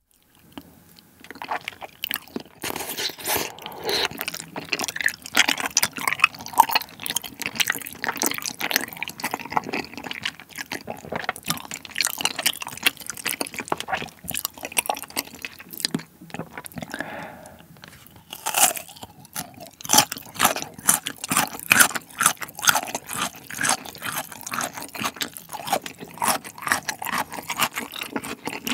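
Close-miked eating sounds of spicy malatang: wide Chinese glass noodles slurped in and chewed with wet, sticky mouth clicks, and crunchy bites of a slice of lotus root.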